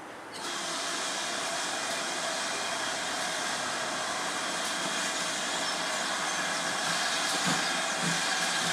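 Steam locomotive letting off steam: a steady hiss that starts suddenly about half a second in and carries on unbroken.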